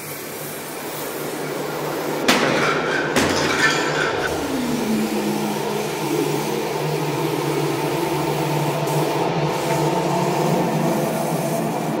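Droning ambient soundtrack: steady low held tones over a constant hiss, with a tone that falls and settles about four seconds in. Two short noisy rushes come between about two and four seconds in.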